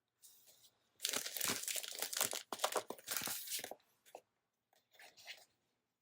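Paper sticker sheet crinkling and tearing for about three seconds as a sticker is peeled off and handled, with a brief break partway through, then a few fainter rustles.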